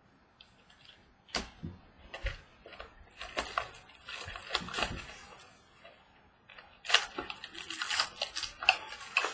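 Baseball card packaging being opened and handled: irregular crinkling, tearing and sharp clicks of wrapper and cards.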